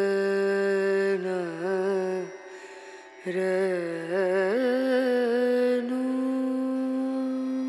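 Background film song: a solo voice sings long held notes with ornamented, wavering runs between them. There is a short break about two and a half seconds in, and a long held note near the end.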